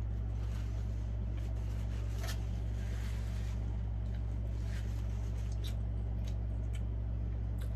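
Close-up chewing and crunching of crispy fried chicken wings and fries, a few faint crackles spread through, over a steady low hum.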